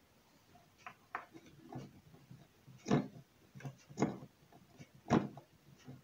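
Handling noise as fingers move wires and clip leads on a home-built power supply in a plastic case: scattered light knocks and rustles, with three louder knocks about a second apart in the middle.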